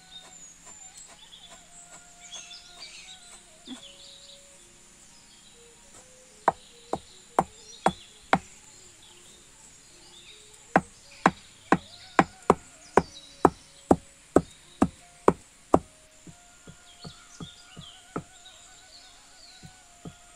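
Wooden pestle pounding sesame seeds in a hollowed-log wooden mortar: sharp thuds that start about six seconds in, five strikes, a short pause, then a steady run of about two to three strikes a second that grows quieter near the end. Faint bird chirps sound in the background.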